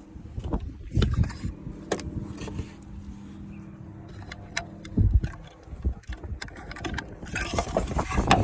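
Toyota Prado 120 rear-door power window motor running, a steady low hum as the newly fitted glass travels in its channel, stopping with a thump about five seconds in. Clicks and knocks follow.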